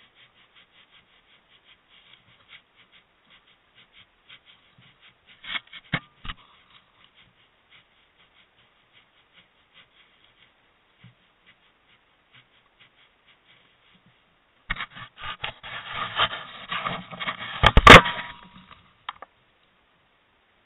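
Wild boar feeding and rooting at a bait spot: a rapid faint clicking and crunching at first, a few knocks near six seconds, then from about fifteen seconds in a loud spell of rubbing and scraping with one sharp knock near eighteen seconds.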